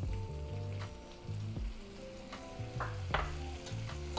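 A garlic and tomato sauce sizzling in a hot frying pan as balsamic vinegar goes in and is stirred, with a few short scrapes of the utensil against the pan.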